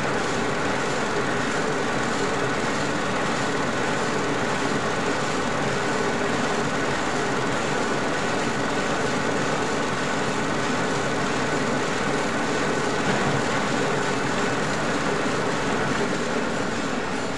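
Metal lathe running steadily while its cutting tool takes a facing cut across a solid PVC wheel blank. The machine's drive gives a continuous drone with a few held tones under the noise of the cut.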